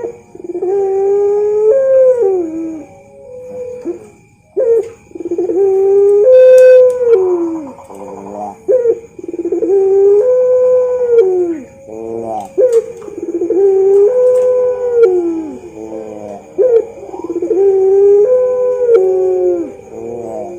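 Puter pelung dove (Barbary dove) cooing: a few short quick notes followed by a long drawn-out coo, repeated five times about every four seconds.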